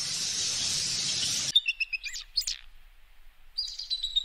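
A steady hiss that cuts off suddenly about a second and a half in, then bald eagle calls: high, thin chirps, and near the end a quick run of piping notes that falls slightly in pitch.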